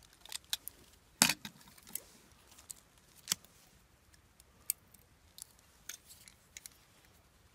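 Irregular sharp clicks and taps of a plastic garden hose spray nozzle being handled, its parts and trigger clicking, with a couple of louder knocks about a second in and about three seconds in.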